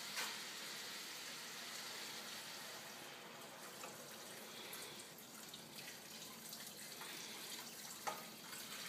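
Water pouring in a steady stream from a glass pitcher into a stainless steel stockpot of chicken carcasses and vegetables, with a light knock just after the start and another about eight seconds in.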